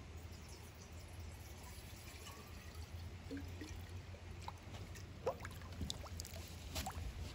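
Insulated steel water bottle held under pond water, filling with a gurgle; in the second half it is lifted out and water drips and plops off it back into the pond in a quickening string of drops. A low steady rumble runs underneath.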